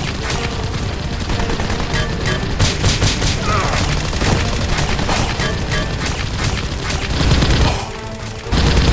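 Rapid gunfire sound effects, many shots close together, laid over background music. The firing drops away briefly near the end before a loud burst.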